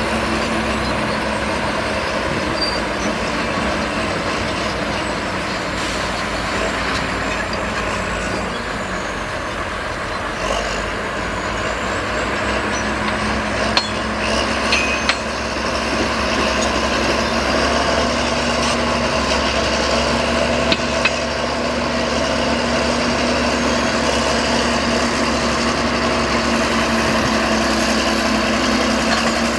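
Heavy earthmoving machinery's engine running steadily under work, with a few short metal clanks about halfway through.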